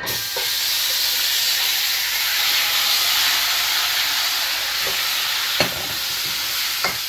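Curry-marinated goat meat hitting hot oil with burnt curry powder in the pot: a loud frying sizzle that starts suddenly and holds steady as the meat begins to sear. A metal spoon knocks against the pot a couple of times near the end as the meat is moved around.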